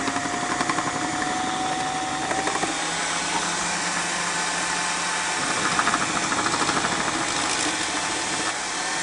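Electric food processor motor running steadily with a whine while its slicing disc cuts zucchini pushed down the feed tube. The cutting gets louder for a second or two about six seconds in.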